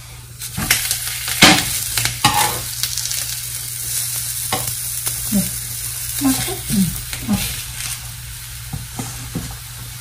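Avocado talipatti flatbread sizzling in oil on a hot tawa, with a metal spatula scraping and pressing against the pan a few times, most sharply in the first couple of seconds.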